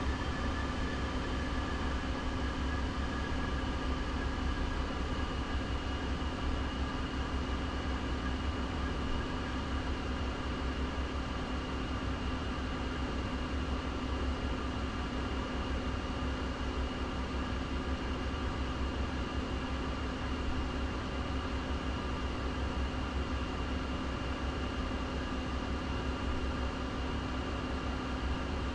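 Steady cabin hum of a stopped Jaguar electric car: a low rumble and an even hiss with a few faint steady tones, unchanging throughout.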